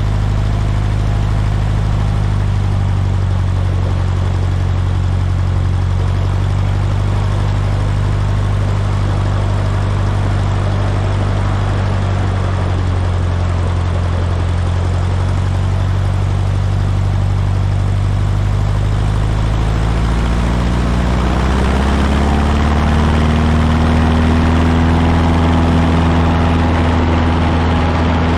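Cessna 150's four-cylinder Continental O-200 engine and propeller running steadily at low power. About twenty seconds in, the engine speeds up smoothly as throttle is added and then holds at a higher steady speed.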